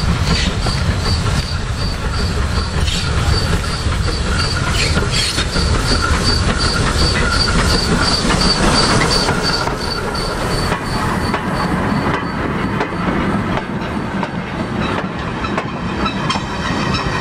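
Small industrial tank steam locomotive hauling a train of coal wagons passing close by, with wheels clicking over the rail joints as the wagons roll past, the clicks more frequent in the last few seconds.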